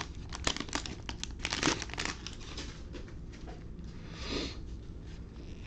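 Plastic trading-card pack wrapper crinkling and rustling as packs are torn open and cards handled: a run of short crackles, with a longer, louder rustle about four seconds in.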